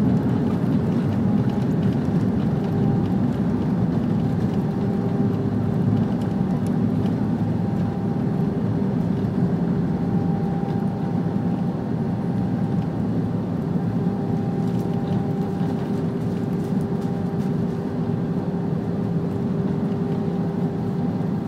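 Cabin noise inside an Airbus A319 rolling out on the runway after landing: a steady low rumble from the engines and wheels with a faint hum, easing slightly as the aircraft slows.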